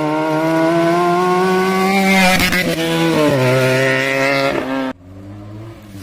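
Benelli TNT 300's 300cc twin-cylinder engine through an aftermarket Akrapovic exhaust, loud and slowly rising in pitch, then dropping in pitch in steps around two to three seconds in. About five seconds in the loud sound cuts off suddenly, leaving a quieter, steady engine sound.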